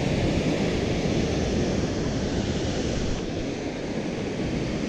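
Surf breaking on the rocks at the foot of a sea cliff, mixed with wind rumbling on the microphone: a steady rushing noise that eases slightly about three seconds in.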